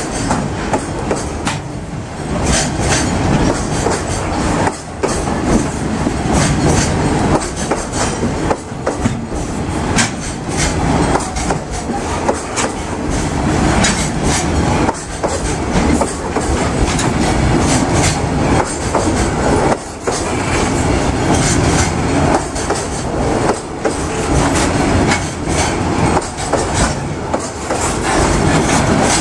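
Toyota Long Pass Express container freight train rolling past over a level crossing: a steady clatter of wagon wheels, with many sharp clacks as the wheels run over rail joints.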